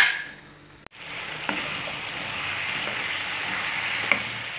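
Cubed pumpkin with onion and peppers frying in oil in a pan, a steady sizzle that comes in about a second in. A spatula knocks against the pan a couple of times while stirring.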